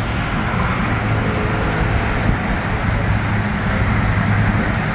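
Water taxi's motor running steadily, a constant low hum over a broad rushing noise.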